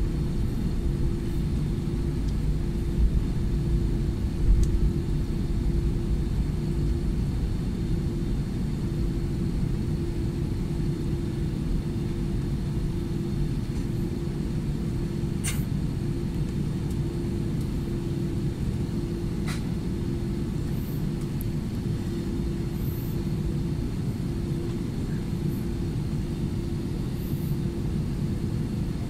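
Cabin noise inside an Airbus A320-200 taxiing before takeoff: a steady low rumble from the engines and airframe with a constant hum over it, and two faint clicks about halfway through.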